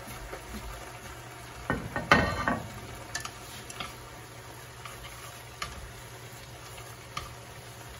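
Chopsticks and a wooden spatula stirring and tossing shark fin squash and glass noodles in a steaming pan, with a louder scraping clatter about two seconds in and light taps of the utensils against the pan after it.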